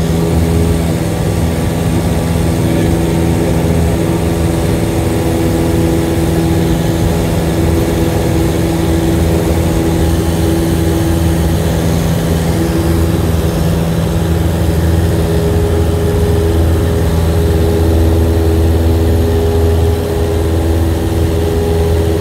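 A single-engine Cessna's piston engine and propeller at takeoff power, a loud steady drone heard inside the cabin during the takeoff roll and climb-out.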